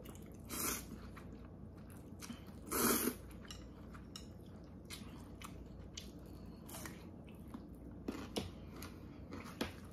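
A person slurping Korean thin wheat noodles in anchovy broth (janchi guksu): two short loud slurps, the first about half a second in and the louder one about three seconds in. Then chewing with small wet clicks.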